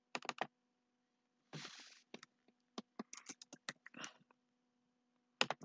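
Typing on a computer keyboard: irregular key clicks in short runs, with a brief rustling burst about a second and a half in, over a faint steady electrical hum.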